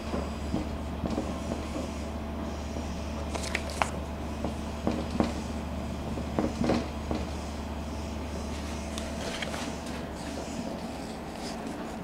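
Marker pen writing on a whiteboard: short, scattered strokes, taps and squeaks of the felt tip. Under them runs a steady low hum that drops away about nine seconds in.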